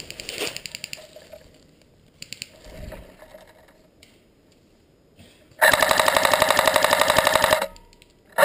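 Airsoft gun firing on full auto: a faint rapid rattle in the first second, then a loud, fast burst of about two seconds a little past halfway, and another burst starting at the very end.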